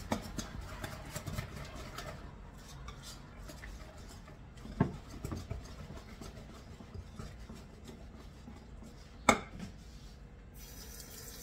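Wide wire whisk beating thick whole wheat pancake batter in a stoneware mixing bowl, the wires scraping and clicking against the bowl in a continuous run, with two sharper knocks about five and nine seconds in.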